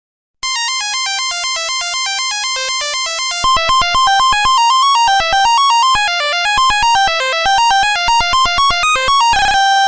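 A Nokia 1100 ringtone starting about half a second in: a fast melody of buzzy electronic beeps, one note after another. It gets louder about three and a half seconds in, and a short noisy buzz comes near the end before a final held note.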